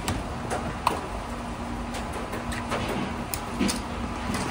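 Steady kitchen background noise with a faint low hum, broken by a few short light clicks and knocks as opened food cans are handled near the end.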